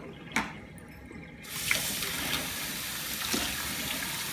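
A tap is turned on about a second and a half in, and water then runs steadily into a sink to rinse the soap out of a doll's hair. A single short knock comes just before it.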